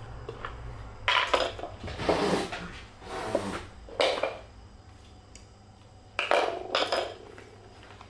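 A series of short scrapes and clatters of hard objects being handled, in about five separate bursts with gaps between them.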